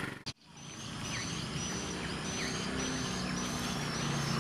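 Rural outdoor ambience: a high, short chirping call repeated about twice a second, over a low steady hum. The sound drops out for a moment near the start.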